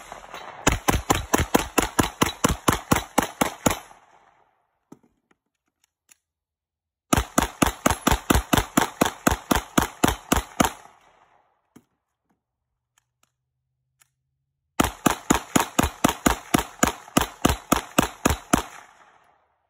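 Glock 19M 9mm pistol fired as fast as possible in three strings of about fifteen shots each, roughly four shots a second. Each string lasts three to four seconds, with a pause of about three seconds between them for a magazine change; a few faint clicks come in the pauses.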